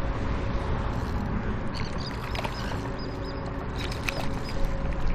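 Wind buffeting the microphone in a steady low rumble, with a series of short, high bird chirps from about two seconds in.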